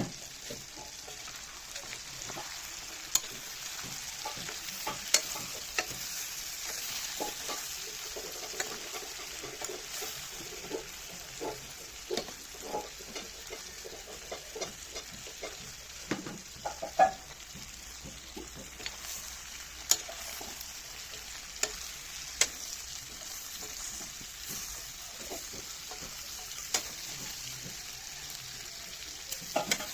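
Food sizzling steadily as it fries in oil in a pan, stirred with a spoon that knocks and scrapes against the pan every second or two.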